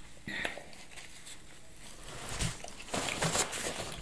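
Quiet eating sounds: chewing with small mouth clicks, then soft handling noises near the end.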